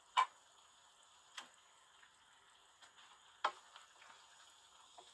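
Wooden spatula knocking against a wok while stirring salmon fish head pieces in a frying masala. There are a few sharp knocks, two of them loud (one just after the start, one past halfway), over a faint steady sizzle.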